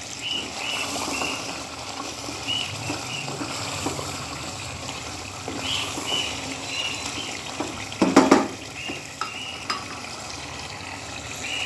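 Chicken in cream masala sizzling and bubbling in a pan as it is stirred, with a louder clatter of utensil on pan about eight seconds in.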